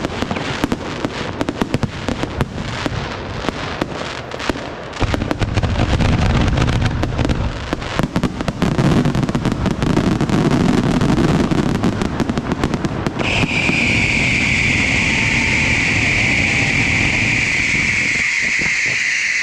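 Large aerial fireworks display: dense rapid crackling and popping, joined about five seconds in by heavy booming salvos. From about two-thirds of the way through, a loud, steady, shrill whistle rises over the bursts.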